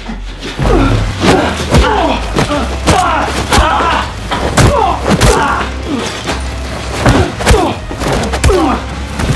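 Staged fistfight: a rapid run of punch and body-hit impacts, about two a second, mixed with the fighters' grunts and shouts, over a steady low drone.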